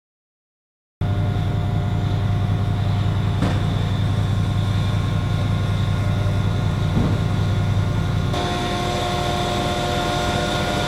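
CNC router running while it machines a 1-inch-thick acrylic sheet: a steady mechanical drone with several held tones and a strong low hum. It starts abruptly about a second in, and the tones shift near the end.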